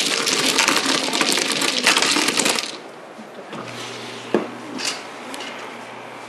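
Plastic mahjong tiles clattering densely as they are swept by hand into the centre opening of an automatic mahjong table, for about two and a half seconds. Then it goes quiet to a low steady hum of the table's mechanism, with one sharp click.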